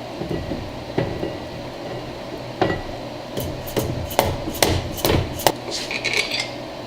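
A series of sharp metal knocks and clinks from hand tools working on a Ford 9-inch Trac-Lok differential case during reassembly, a few at first and then about two a second for a few seconds, over a steady low hum.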